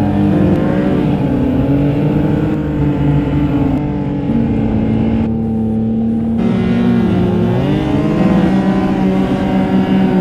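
Snowmobile engine running hard through deep powder, holding a steady pitch for stretches and dipping then climbing back a few times as the throttle is eased and reapplied.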